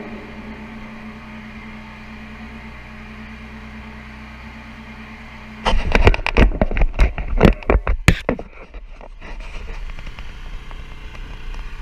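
Portable generator running steadily with an even hum. About six seconds in, a few seconds of loud, irregular cracks and knocks cut through it, then the generator hum carries on.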